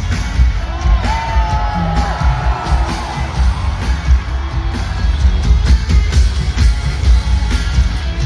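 Live pop concert music over a big arena sound system, heard from within the crowd: a heavy, pulsing bass beat with a high voice sliding about a second in, and the audience cheering.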